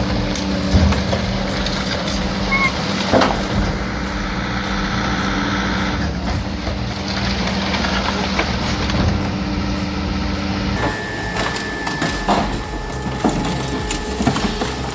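Heavy industrial crushing machinery running with a steady low hum and scattered knocks and cracks. About eleven seconds in, the hum cuts out and a different machine sound with a higher steady tone takes over.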